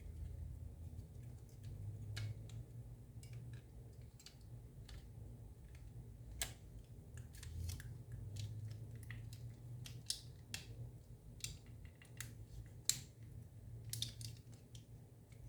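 Scattered small clicks and taps of an Xbox controller's plastic shell and parts being handled and fitted together, with one sharper click near the end, over a steady low hum.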